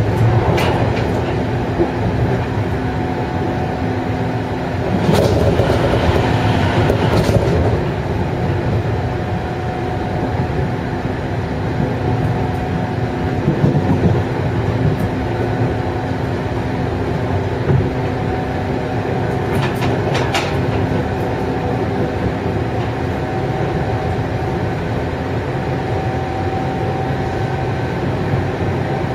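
Interior running sound of a JR 103 series electric commuter train: the MT55 traction motors of the adjoining motor car give a steady whine over the rumble of the wheels on the rails. A few rail-joint clacks come through: one right at the start, a cluster several seconds in, and more around two-thirds of the way through.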